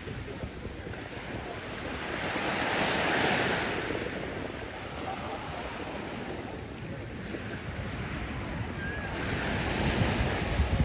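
Small Mediterranean waves breaking and washing up a sandy beach, the surf swelling twice. Wind gusts buffet the microphone.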